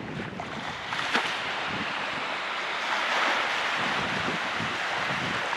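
Steady rushing of bay water washing at the shore, mixed with wind on the microphone. It grows a little louder about three seconds in.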